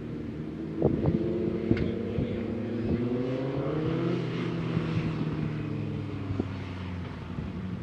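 A motor vehicle's engine running by, its pitch rising for a few seconds and then falling away, with wind buffeting the microphone and a few short knocks about a second in.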